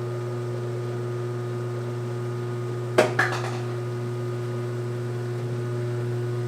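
Whirlpool/Kenmore top-load washer running with its drive motor humming steadily while the clutch slips and the basket does not spin: the clutch has lost its grip. A sharp knock and a smaller one come about three seconds in.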